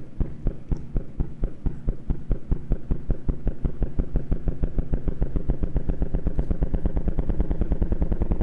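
Computer-simulated gravitational-wave sound of a light black hole spiralling into a very heavy black hole, played as audio: a train of drum-like bangs, one for each close pass. The bangs come faster and louder as it falls in, until they nearly run together.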